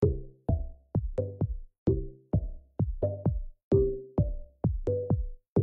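Electronic background music: a steady drum-machine beat of about two hits a second, with short pitched notes that die away after each hit.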